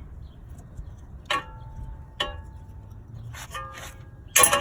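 A few sharp metallic clinks of metal parts or tools knocking together, each ringing briefly; the loudest comes near the end.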